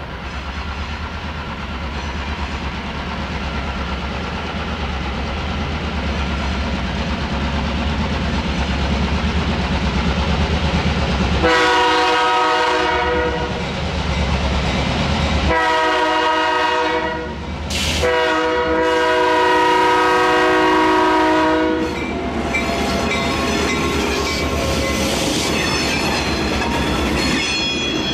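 EMD diesel locomotive approaching with its engine rumbling louder, sounding its air horn in three long blasts, the last the longest. It then rolls close past with high wheel squeal from the rails as the cars follow.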